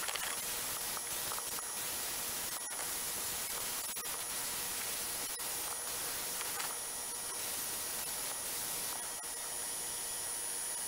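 Steady hiss of compressed-air abrasive blasting on the vise parts, with the suction running. The hiss briefly drops out a few times.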